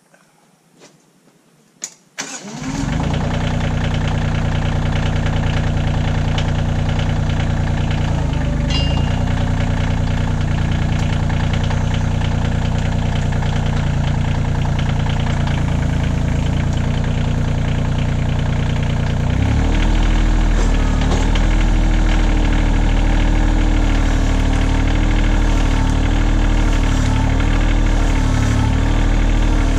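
Kioti CK2610 compact tractor's three-cylinder diesel engine starting: a couple of clicks, then it cranks and catches about two and a half seconds in and settles into a steady run. About twenty seconds in its note changes and it runs slightly louder as the tractor moves off under load.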